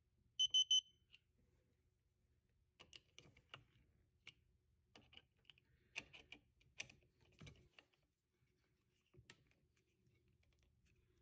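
Wheeler digital torque screwdriver beeping three times in quick succession, its alert that the set torque has been reached on a scope ring screw. Then scattered small metal clicks and ticks as the driver bit is fitted and turned on the ring screws.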